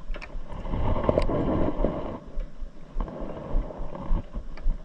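Splashing, knocks and handling noise as a freshly caught bass thrashes while it is lifted over a fishing kayak and held by the lip, with scattered sharp clicks over a steady low rumble.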